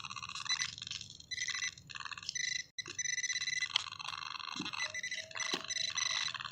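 Metal-detecting pinpointer probe buzzing in the dig hole, its electronic tone cutting on and off in short and longer stretches as it closes in on a target, with a few faint clicks.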